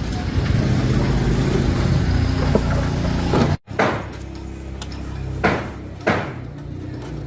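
A steady low machine-like hum that cuts off abruptly a little past halfway, followed by a few short, sharp knocks, like hard parts being set down or tapped.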